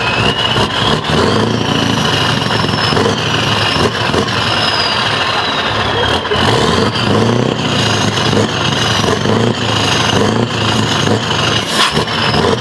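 Loud Scania R620 V8 diesel revved again and again while standing still, the engine note rising and falling about once a second through its side exhaust pipes.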